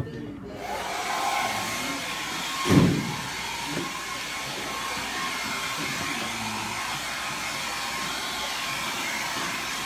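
Handheld blow dryer switched on about half a second in and running steadily with a faint motor whine, as used to blow loose hair off after a cut. A brief low thump about three seconds in.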